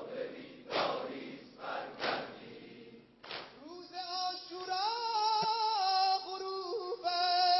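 A large crowd of mourners beating their chests in unison, with a loud slap every second or so and crowd noise between the strokes. About three and a half seconds in, a single voice starts singing a long, drawn-out line of a mourning lament (noheh).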